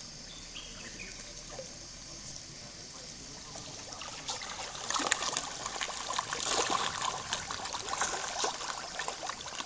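Pond water splashing and trickling as a crowd of fish churns at the surface. It is quieter at first, then louder with many small splashes from about four seconds in.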